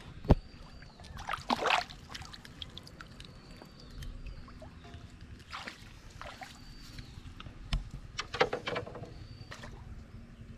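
Water splashing and sloshing as a hooked walking catfish (magur) thrashes at the surface on a hand line, in two bursts: about a second in and again near eight seconds.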